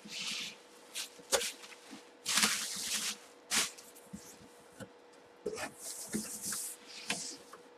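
Large cardboard boxes being handled and slid about on a table: a string of short scraping rustles and knocks, with a faint steady hum underneath.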